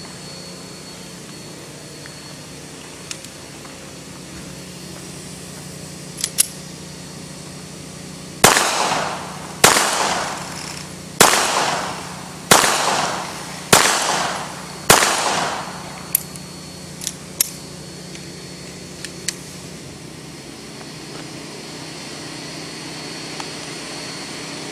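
Six shots from a Hellcat .380 ACP pocket pistol, fired about one every 1.2 seconds, each trailing off in an echo. A few light clicks come before and after the string of shots.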